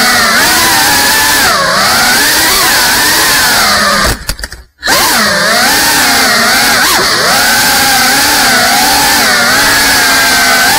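GEPRC Cinelog 35 FPV drone's brushless motors and propellers whining, the pitch rising and falling with every throttle change. The whine cuts out abruptly about four seconds in and picks straight back up half a second later.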